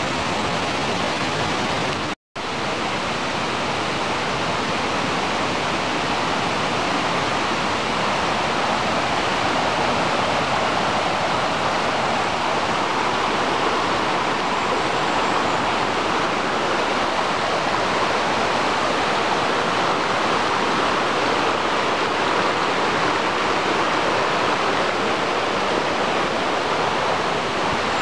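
Rushing stream pouring over rocks: a steady, continuous rush of water that cuts out for a split second about two seconds in.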